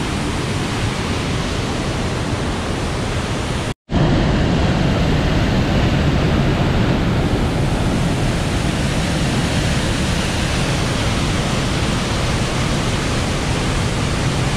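Steady rush of falling and running water, loud and even. It cuts out for a moment about four seconds in and comes back slightly louder.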